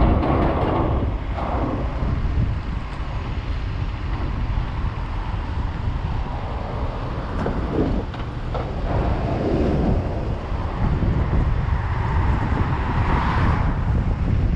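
Traffic noise: a steady low rumble of vehicles with wind on the microphone, swelling as a vehicle passes near the end.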